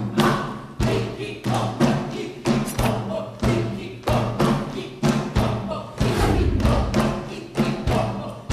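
A swing band playing an up-tempo number with a heavy, steady drum beat about twice a second over sustained bass and horn notes, without singing.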